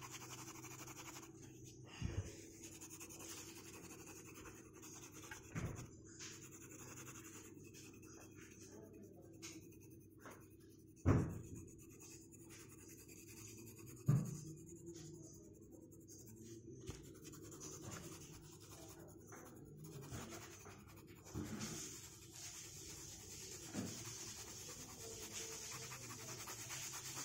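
Grey coloured pencil shading on paper: a faint, steady scratching of the lead over the sheet. A few short knocks are heard, the loudest about halfway through.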